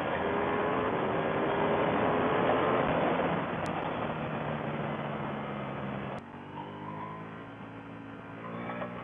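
Ducati Panigale V4 S's V4 engine pulling hard at highway speed under heavy wind rush, its pitch rising over the first three seconds. About six seconds in, the sound cuts off abruptly to a quieter, lower engine note.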